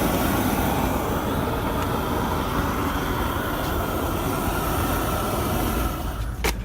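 Steady rumble of vehicle traffic, ending in a sharp click near the end.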